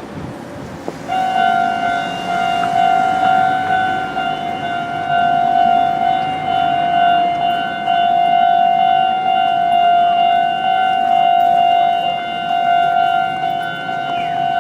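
A siren sounding one long, steady tone that starts suddenly about a second in and holds at the same pitch, over the background noise of a busy street.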